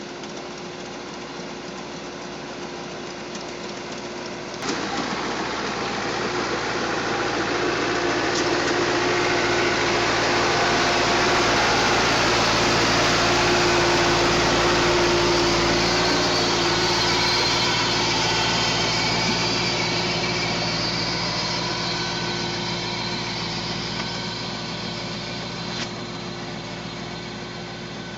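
Engine of an orchard pruning machine running steadily, with a sudden jump in loudness about five seconds in. It then swells to a peak mid-way and fades over the last seconds.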